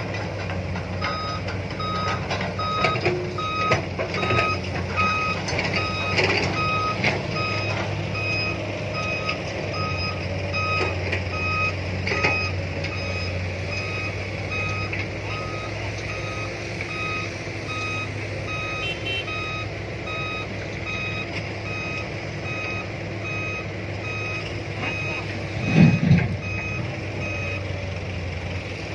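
Hydraulic excavator's diesel engine running steadily while digging and loading, with an electronic warning beeper repeating about twice a second, louder in the first few seconds. A heavy thud comes near the end.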